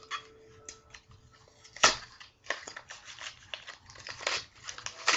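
Foil Yu-Gi-Oh booster pack crinkling and crackling in the hands as it is torn open, a quick series of sharp crackles with the loudest about two seconds in.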